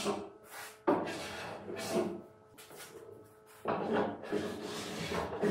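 Sanding block rubbed back and forth by hand along the top edge of a solid-wood dovetailed carcass: a run of scraping strokes that pauses for about a second and a half midway, then starts again.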